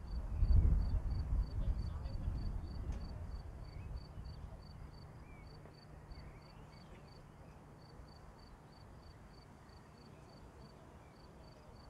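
Distant thunder: a low rumble swells about half a second in and rolls away over the next few seconds. An insect chirps steadily in the background, about three short high pulses a second.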